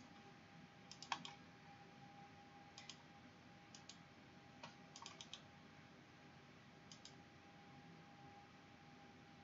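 Faint computer mouse clicks, a few at a time and often in quick pairs, over a faint steady hum.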